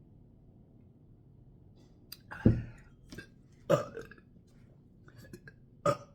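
A woman burping several times. The loudest and longest burp comes about two and a half seconds in, with shorter ones at about four and six seconds.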